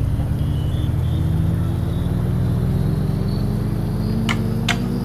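A motor vehicle's engine running steadily, its pitch rising slowly as it gathers speed, with a few sharp clicks or rattles near the end.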